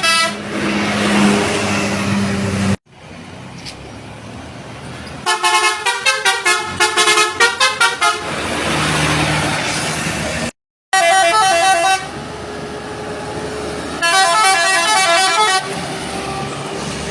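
Basuri musical bus horns sounding quick runs of stepped tones like a short tune, three separate bursts, with bus engine and road noise between them.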